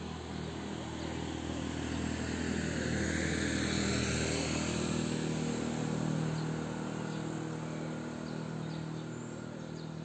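A motor vehicle passing on the street: engine and tyre noise grow louder, peak mid-way, then fade.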